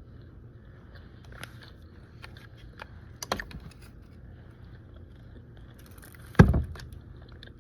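Eating sounds: scattered small clicks and taps of food and utensils. A sharper click comes about three seconds in, and a heavy thump about six and a half seconds in.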